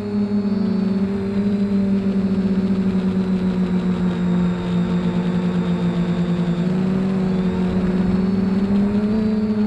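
Electric motors and propellers of a small drone humming steadily, heard from its onboard camera, with a fast pulsing beat. The pitch sags a little about seven seconds in and rises again near the end.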